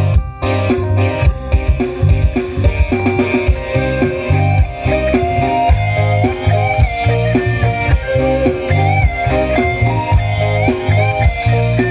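Band music: an electric guitar melody with bending notes over bass guitar and drums, with a steady beat.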